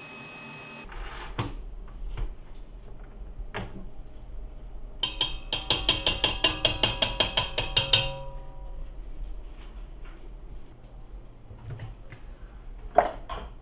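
Metal tapping on a stainless steel stand-mixer bowl. A few scattered knocks come first, then about three seconds of rapid, evenly spaced strikes, some seven a second, with the bowl ringing under them. A sharp knock follows near the end.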